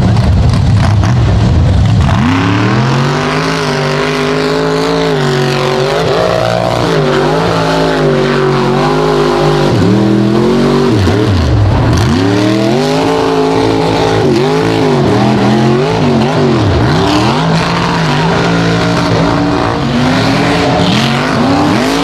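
Lifted mud-bog trucks' engines revving hard through a mud pit, the pitch swinging up and down again and again as the throttle is worked, over a low rough rumble.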